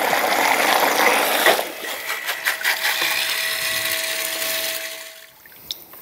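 Rule-Mate automatic bilge pump running submerged in a tub of water, its built-in switch having triggered it, churning the water loudly. After about a second and a half the water noise drops away and the motor's steady hum carries on until it cuts off about five seconds in.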